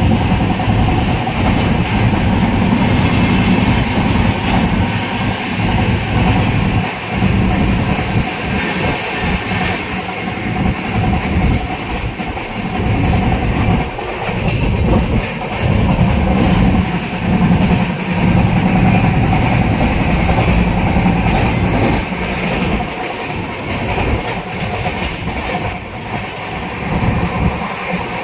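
Passenger train running along the track, heard from inside the coach at an open window: a continuous rumble of wheels on rails that swells and eases.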